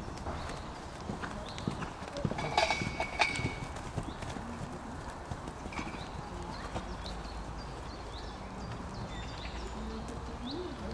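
A ridden horse's hoofbeats on a sand arena at the trot, with a cluster of sharper clicks about two to three seconds in.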